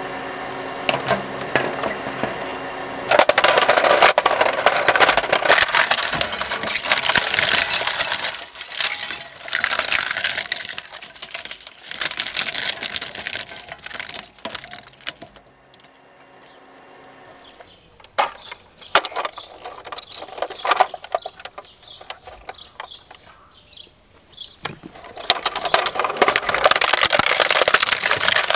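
Twin-shaft shredder's steel cutter discs crunching and cracking a plastic toy vehicle to pieces, a dense loud crackle for the first dozen seconds that thins to scattered sharp cracks as the last fragments go through, with the machine's steady running tone between. Near the end the crunching builds up again as another plastic toy is taken by the blades.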